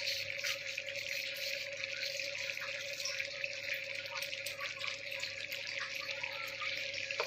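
Egg korma gravy simmering in a frying pan over a low gas flame: a steady hiss with many small bubbling pops.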